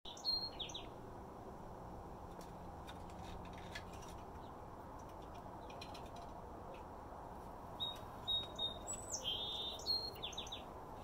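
Small birds chirping in high, quick notes: a short run of falling chirps near the start, then a longer burst of chirps and whistles in the last few seconds, over a steady low background hum.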